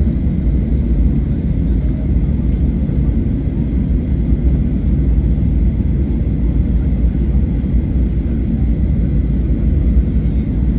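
Boeing 737-800 with CFM56-7B turbofan engines, heard as a steady, loud, low rumble with a faint high steady whine.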